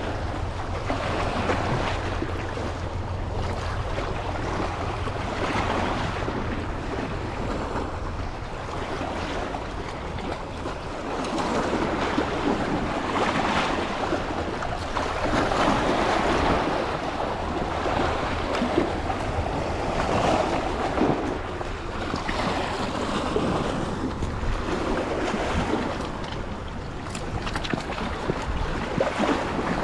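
Columbia River water rushing, with wind buffeting the microphone; a low rumble for the first several seconds.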